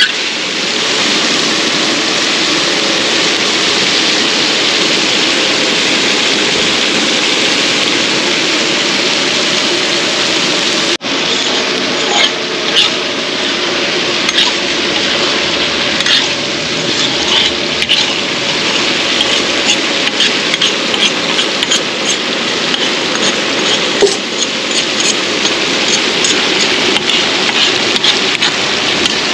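Cauliflower and potato pieces frying in oil in a large iron kadhai: a loud, steady sizzle. After a short break about eleven seconds in, a metal ladle scrapes and clinks against the pan again and again as the vegetables are stirred.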